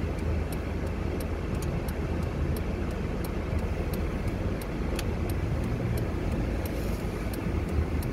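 Car driving slowly on a snowy street, heard from inside the cabin: a steady low engine and road rumble, with a faint, regular ticking about three times a second.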